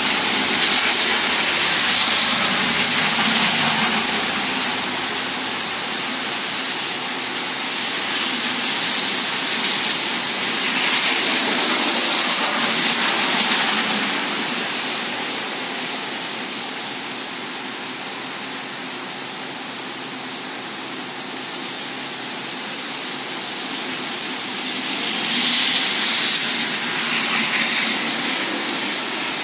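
Thunderstorm rain pouring steadily, swelling louder three times, near the start, in the middle and near the end.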